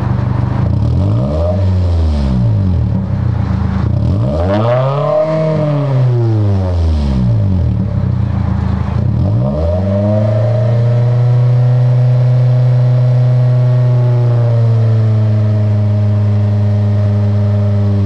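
Toyota Celica's four-cylinder engine being revved from the tailpipe end: two quick rises and falls in revs, then a long rev held high for about seven seconds before dropping back near the end. The engine is being revved warm to bring back an intermittent misfire (code P0354).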